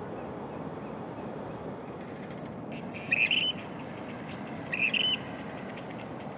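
A western grebe calling twice, two short high calls about a second and a half apart, over a steady background hum.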